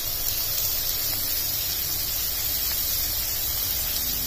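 Diced radish, onions and tomatoes frying in hot oil in a pan, giving a steady sizzling hiss.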